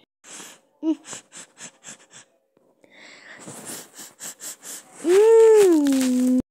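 Several soft quick clicks and breathy puffs, then near the end a child's drawn-out voiced sound that rises, slides down in pitch and holds before cutting off suddenly.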